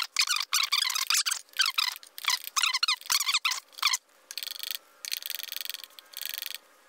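Sped-up workbench audio from spreading filler with a small spatula: about four seconds of rapid, high, squeaky chirps, then two short stretches of a steady rasping hiss near the end.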